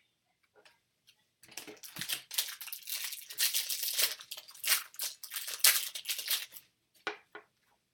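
Foil wrapper of a trading-card pack being torn open and crinkled, a dense crackle lasting about five seconds, followed by a few light ticks near the end.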